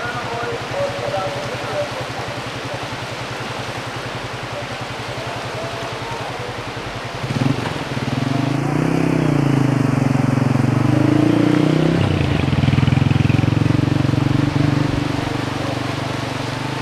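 A motor vehicle engine, first a low steady throb, then from about seven seconds in running louder with its pitch rising and falling for several seconds before easing off, over a steady rushing noise.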